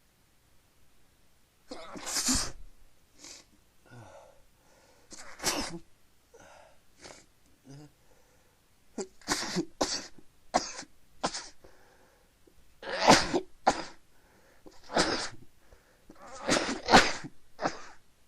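A person sneezing again and again into a handkerchief: a string of sharp, sudden sneezes a few seconds apart, with fainter sounds between them.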